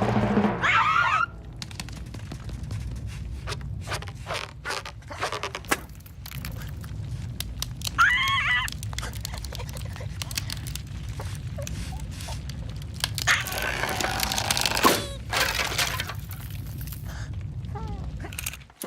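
Animated cartoon sound effects: a string of sharp clicks, cracks and knocks with short squeaky character cries, once near the start and again about eight seconds in, over a low steady rumble.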